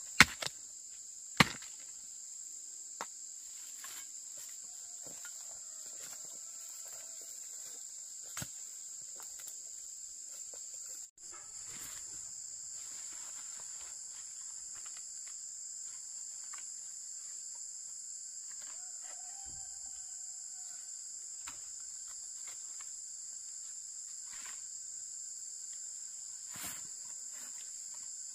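Steady high-pitched insect chorus. A few sharp knocks sound in the first several seconds, the two loudest right at the start and about a second and a half in.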